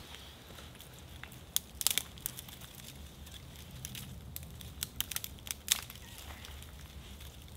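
Irregular crinkling and crackling with sharp clicks, bunched about one and a half to two and a half seconds in and again around five to six seconds in.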